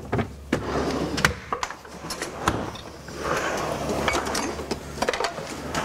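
Kitchen rummaging: scattered clicks and knocks of items being handled in a refrigerator, with rustling, then a kitchen drawer pulled open.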